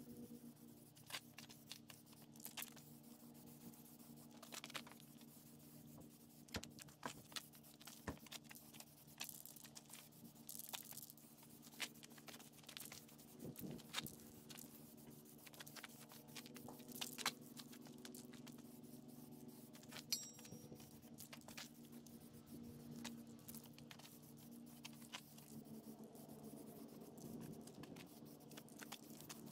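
Faint scattered scrapes, crunches and light taps from hand work around steel wheels being painted, with shoes shifting on gravel, over a steady low hum.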